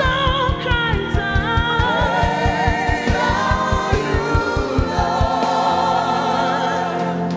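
Live gospel music: choir singing held, wavering notes with the band, over a fast, even bass drum pulse that stops about five seconds in, leaving held chords.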